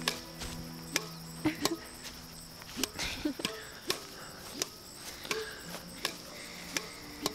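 A steady series of sharp ticks, about one every two-thirds of a second, over faint lingering music tones.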